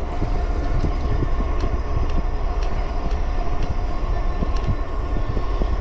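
Wind buffeting the microphone and tyre noise from an e-bike cruising at speed on pavement, a continuous low rumble with a faint steady whine over it.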